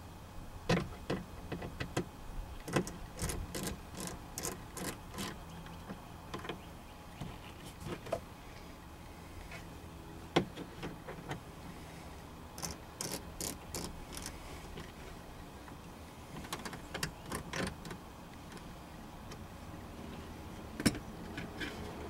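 Small plastic clicks and taps of a screwdriver and twist-lock bulb sockets being worked into a 2005 Dodge Caravan instrument cluster, in short runs of several clicks a second separated by pauses, with one sharper click about ten seconds in.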